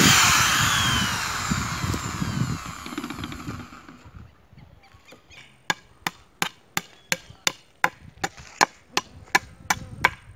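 Corded electric drill boring a screw hole through a pine board, starting sharply and trailing off over about four seconds. Later a steady run of sharp clicks, about three a second.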